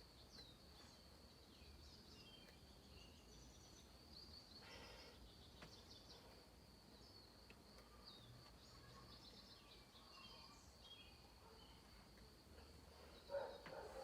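Faint outdoor ambience: a steady high insect drone with scattered bird chirps. A brief thump sounds near the end.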